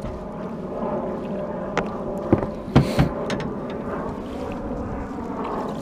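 Steady wind and water noise around a small fishing boat, with a faint steady hum. A few sharp knocks and clatters come about two to three seconds in, the loudest just before the three-second mark.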